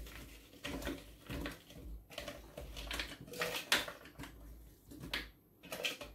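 Irregular clatter and light knocks as chopped fruit and blueberries are tipped into a plastic food processor bowl.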